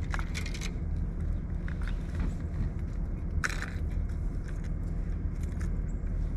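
Fishing lures being handled, giving scattered clicks and rattles with a cluster in the first second and the loudest about three and a half seconds in, over a steady low rumble.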